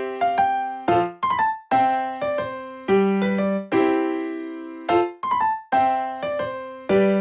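Background music: a light electric piano melody, notes struck about once a second and left to ring and fade.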